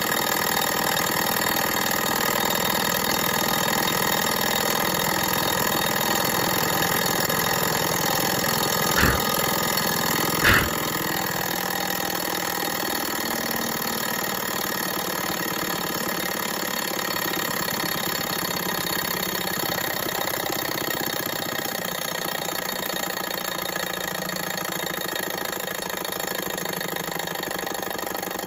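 Model Stirling hot air engine running steadily, a mechanical whir from its pistons and flywheel. Two sharp clicks come about nine and ten and a half seconds in. After that it runs on with its burner out, slowly getting quieter.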